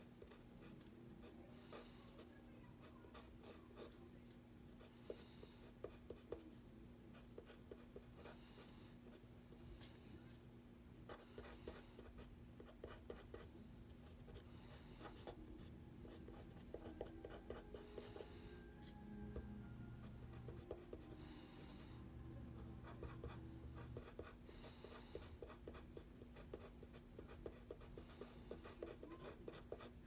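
Pencil scratching on paper in many short, quick strokes while sketching, faint, over a steady low hum.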